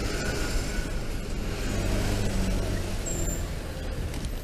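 Road traffic: the steady low hum of nearby car and truck engines running in slow, congested traffic, with the hum of one engine swelling in the middle. The electric scooter itself makes almost no sound.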